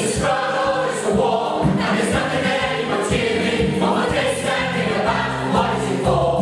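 Stage chorus of men and women singing together over musical accompaniment, with a beat marked about once a second.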